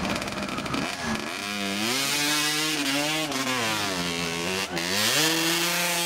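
Dirt bike engine revving hard, its pitch climbing and dropping several times, as the rider fights up a steep loose-dirt slope with the rear wheel digging in.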